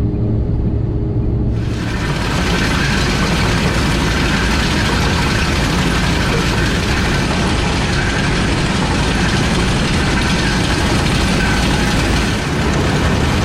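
Combine harvester running while harvesting oats, a steady mechanical din. About a second and a half in, the sound changes abruptly from a low engine hum to a fuller, hissing machine noise across all pitches.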